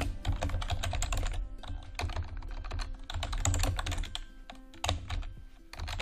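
Typing on a computer keyboard: quick, irregular key clicks, thinning out briefly between about four and six seconds in.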